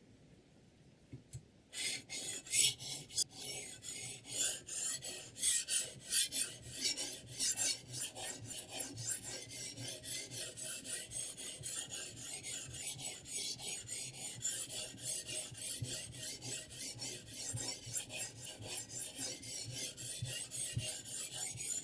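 A sharpening stone on a guided knife-sharpening system rasping back and forth along the edge of a 10Cr15CoMoV steel chef knife, in quick even strokes several times a second. It starts about two seconds in and keeps a steady rhythm.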